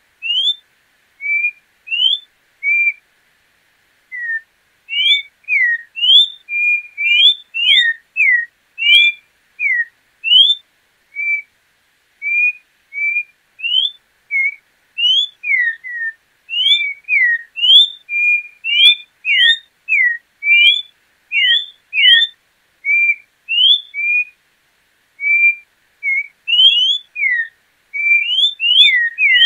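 Orange-backed troupial (João-pinto) singing: a run of short, clear whistled notes, some sliding up and some sliding down, about two a second, with a brief pause about three seconds in.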